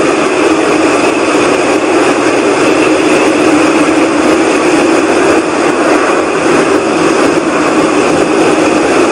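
Steady, loud whooshing rumble from the sky, a sound between a rushing and a rumbling that holds without a break; the recordist insists it is not aircraft noise.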